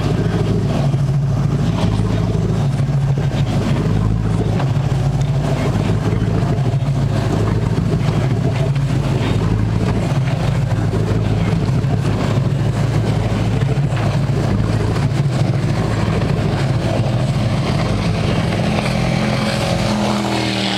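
Motorboat engine running with a steady low drone, its tone shifting slightly near the end.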